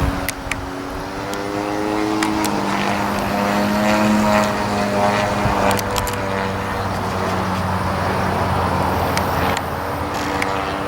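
50cc gas engine of a radio-controlled aerobatic airplane in flight, flying an avalanche (a loop with a snap roll at the top). The engine pitch drops over the first couple of seconds, rises again, then holds steady.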